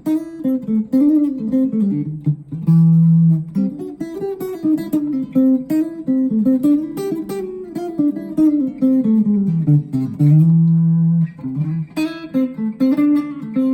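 Schecter OL-PT-TH thinline electric guitar played through a small VOX MINI5 practice amp: a picked single-note melody winding up and down, with a couple of longer held low notes.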